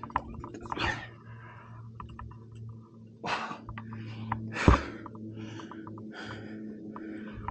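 A rock climber breathing hard while working moves on a route, about six sharp puffs of breath, one every second or so. There is one sharp knock about four and a half seconds in, over a steady low hum.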